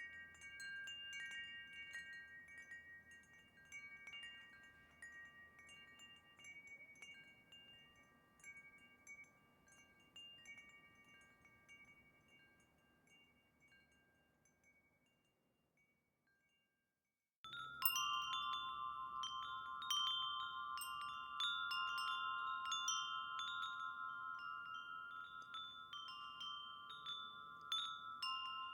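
Wind chimes ringing, the strikes thinning and dying away over about fifteen seconds into a moment of silence. A different chime with lower tones then starts abruptly and rings busily, with many overlapping strikes.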